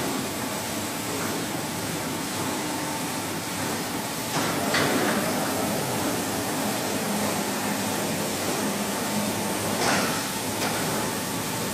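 Automatic carpet washing machine running: a steady mechanical noise with a faint hum, and a brief swishing surge about four and a half seconds in and again near the end.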